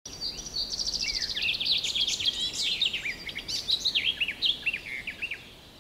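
Small songbird singing a varied song of quick high chirps and trills, with rapid repeated notes and short downward-hooked whistles, ending shortly before the interview starts.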